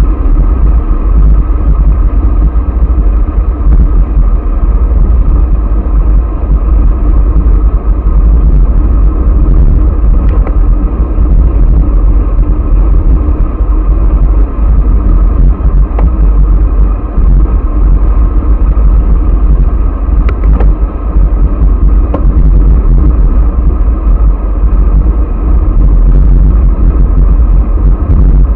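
Heavy wind buffeting on a bicycle-mounted camera's microphone at speed: a loud, steady, low rumble, with a few faint clicks now and then.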